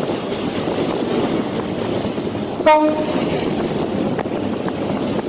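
Steady rushing wind and sea noise aboard a ship in a storm, with wind buffeting the microphone. About two and a half seconds in, a single brief, loud horn-like blast cuts through.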